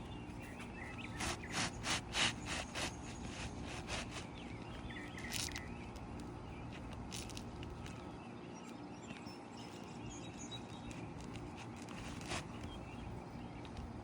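Hand work on a shingle roof: a quick run of about six short scrapes or taps, then two single ones, over steady outdoor background.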